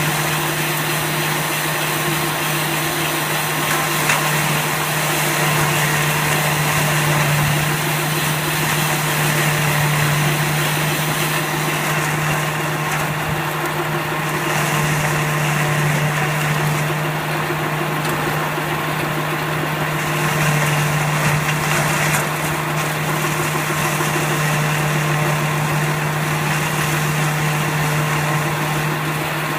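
Automatic silage baler running: a steady, constant machine hum with mechanical noise over it.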